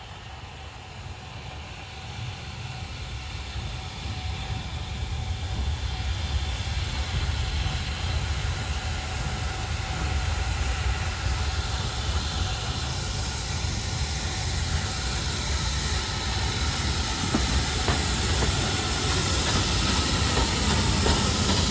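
Two steam tank locomotives running coupled, LBSCR Terrier 72 Fenchurch leading BR Standard 4MT tank 80151 with a train, approaching and drawing alongside. A steady hiss of steam over a low rumble grows louder throughout.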